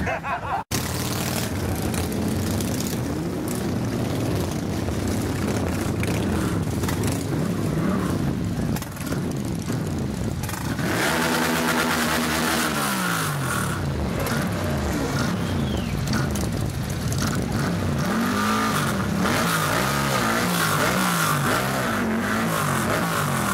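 Several motorcycle engines running at close range and being revved, their pitch repeatedly climbing and falling. One big rev rises and falls about halfway through.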